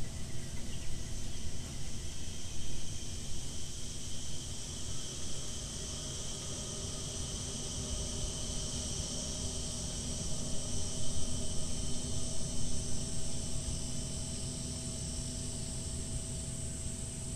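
Insects buzzing steadily in the bush at several high pitches, over a low, uneven rumbling noise.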